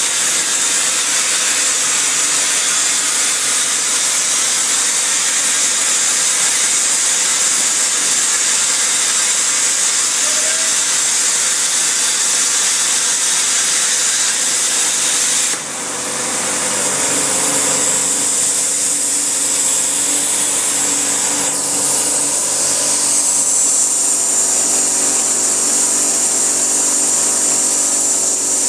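Hypertherm Powermax 105 air plasma torch cutting through a 20 mm-wall mild steel pipe: a loud, steady hiss. About halfway through the sound drops out for a moment, then resumes as a hiss with a steady hum underneath.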